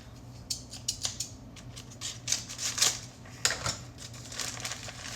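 Snack packaging being worked open by hand: a scatter of sharp snips, clicks and short crinkles, loudest around the middle.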